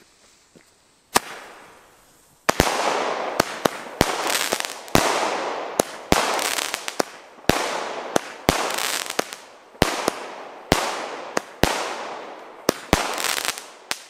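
Consumer firework battery (Nico Stardance with Zerleger breaks) firing shot after shot. One sharp bang comes about a second in, then a rapid run of bangs, one or two a second, each followed by a hiss that fades.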